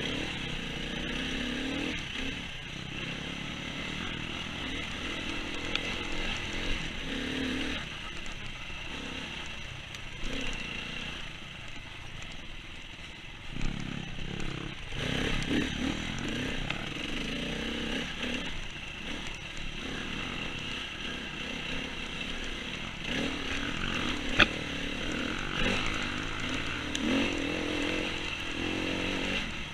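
KTM enduro dirt bike's engine running on and off the throttle, its pitch rising and falling as the bike rides a muddy woodland trail. One sharp knock sounds about 24 seconds in.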